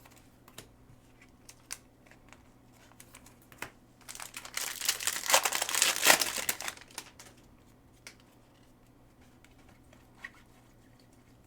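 A trading-card pack's wrapper being torn open and crinkled, a burst of rustling from about four to seven seconds in, with a few light ticks and taps before and after.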